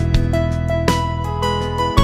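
Gentle instrumental background music, with plucked notes over a held low tone.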